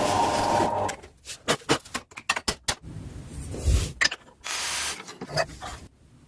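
Woodworking shop sounds: a steady power-tool-like noise that cuts off about a second in, then a run of sharp, irregular knocks and taps on wood, with a short burst of machine noise about halfway.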